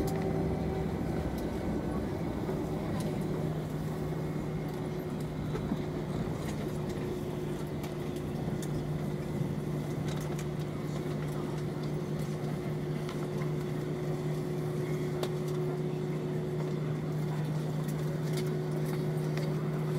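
Cabin noise of an Airbus A321 rolling out on the runway just after landing: a steady engine hum with a low drone and a higher tone over a broad rushing noise, with a few faint clicks.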